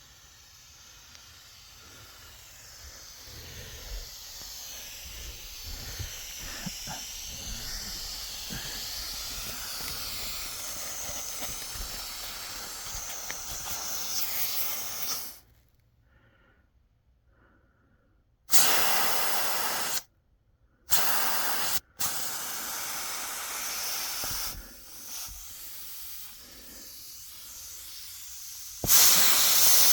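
Air rushing through HVAC duct pipes and out of the opening: a hiss that builds over the first dozen seconds, then cuts out. Then come several louder blasts of air with short silent gaps between them, the loudest near the end.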